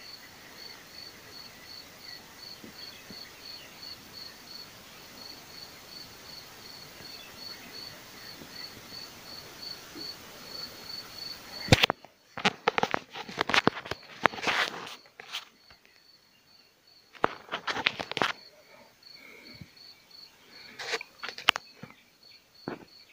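A cricket chirping steadily in an even, high-pitched pulse of about three chirps a second over a low outdoor hiss. About halfway through the hiss drops away and loud, irregular rustling and knocking bursts come and go, with the chirping still under them.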